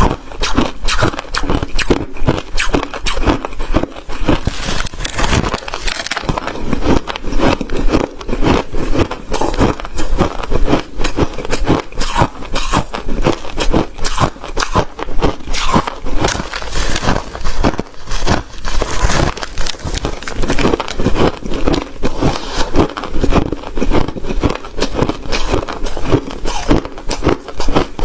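Close-miked biting and chewing of crunchy white ice, a rapid, continuous run of loud crackling crunches.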